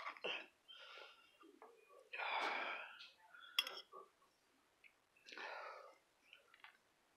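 A man's breathy, strained exhalations, three of them, while he struggles to cut tough French toast with a fork. A light clink of the fork on the plate comes about three and a half seconds in.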